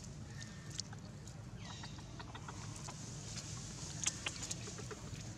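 Macaque chewing on a corn cob: scattered crisp crunches and clicks, most of them about four seconds in, over a steady low rumble.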